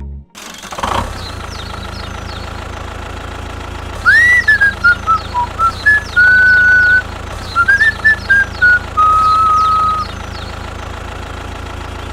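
A steady engine-like hum with a short whistled tune over it, loud, gliding notes from about four seconds in until about ten seconds.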